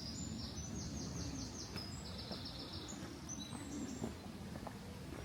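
Small songbird singing outdoors: several quick runs of rapidly repeated high notes in the first three seconds, over a steady low rumble.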